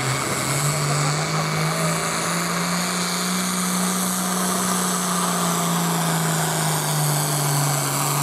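Diesel farm tractor engine at full throttle, pulling a weight-transfer sled in a tractor pull. It drones steadily, rising a little in pitch over the first couple of seconds, holding there, and starting to drop near the end.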